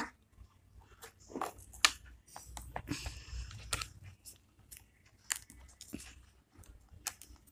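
Clear crystal mud slime stuck to the floor being peeled and pulled by fingers: faint, scattered sticky clicks and crackles, busiest two to four seconds in.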